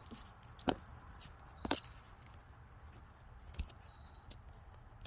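A few light, sharp clicks of a steel feeler gauge's blades being handled while the 0.020 in leaf is picked out to check a piston ring's end gap. Faint, short, high chirps repeat in the background.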